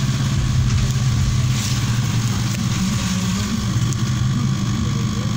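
Steady low hum of a running motor, unchanging throughout.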